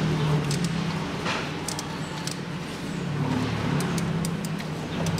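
Scattered sharp metallic clicks of a 10 mm socket wrench working the water pump's M6 bolts loose, over a steady low hum.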